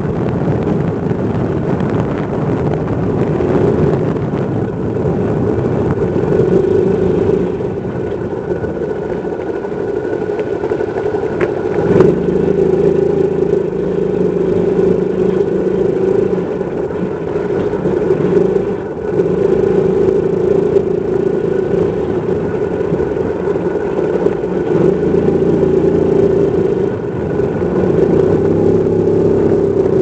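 A vehicle's engine running steadily while driving along a wet gravel road. The engine note changes about twelve seconds in and again near twenty-five seconds.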